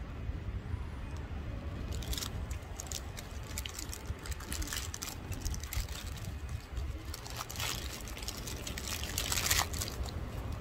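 Wind rumbling on the microphone, with bursts of sharp crackling from about two seconds in, thickest near the end.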